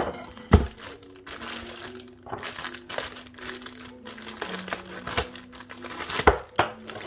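Plastic bag around a whole raw turkey crinkling as it is handled and cut open with a knife. Two sharp thumps, about half a second in and again near the end.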